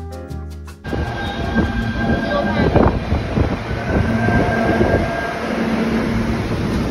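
Subway train running through a station: a loud, steady rumble and clatter with thin, steady squealing tones above it.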